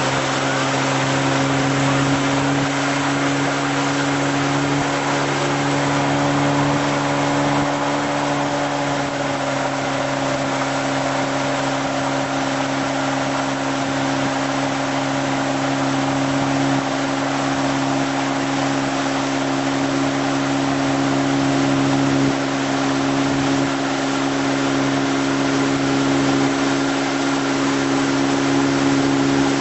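Tow boat's engine running at a steady cruising speed, a constant engine note, over a steady hiss of rushing water.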